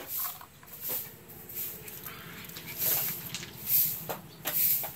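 Short, high-pitched squeaks repeated about once a second, from a pug puppy and Asian small-clawed otters.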